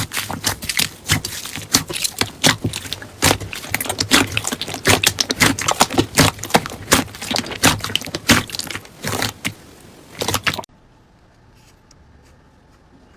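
Slime being squeezed and pressed by hand, making rapid, irregular crackling pops and squelchy clicks. The sound cuts off abruptly near the end, leaving only a few faint ticks.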